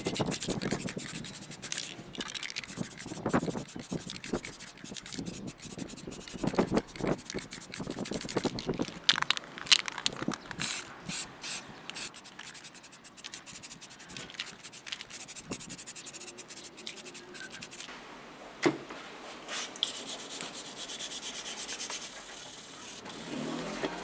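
Aerosol spray paint can hissing in short bursts and a longer pass, mixed with rubbing and scraping as the jig saw's plastic and metal housings are handled.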